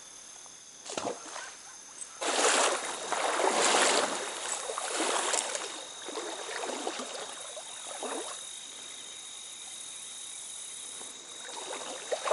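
Water splashing and swishing in a string of irregular surges, loudest from about two to five seconds in, then dying away. Crickets trill steadily underneath.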